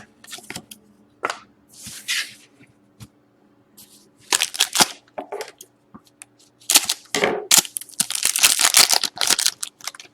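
Trading-card pack wrapper being torn open and crinkled, with cards handled, in irregular bursts. The longest and loudest run comes in the second half.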